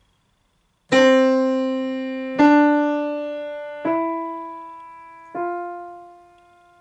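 Grand piano playing four rising notes of a five-finger scale, one about every second and a half, each left to ring and fade. The notes grow softer after the second: a diminuendo played by easing the pressure on each key.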